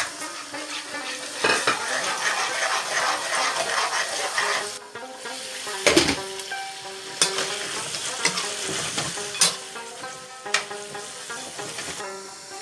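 Onions frying in hot oil in a non-stick pan, sizzling while a metal slotted spoon stirs and scrapes them. The sizzle is densest in the first half; after that the spoon knocks sharply against the pan several times.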